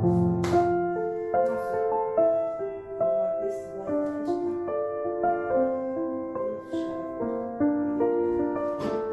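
Background piano music: a slow melody of held notes over soft chords. A few brief rustling noises sit underneath it.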